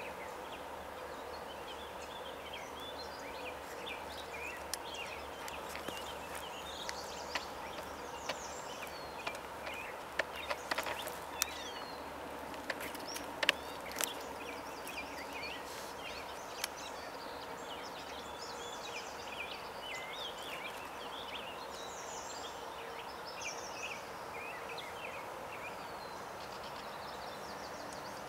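A chorus of wild birds singing and calling: many short chirps and trills throughout, over a steady low hum. A few sharp clicks come about ten to fourteen seconds in.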